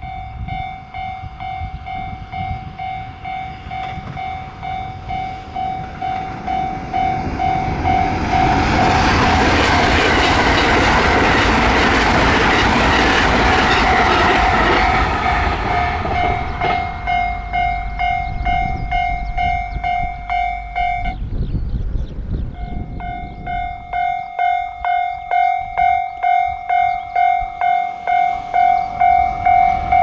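Japanese level-crossing alarm ringing its repeated electronic ding about twice a second, as a limited express electric train runs past. The train's rushing noise swells to its loudest in the first half. The alarm breaks off briefly about two-thirds in and then goes on.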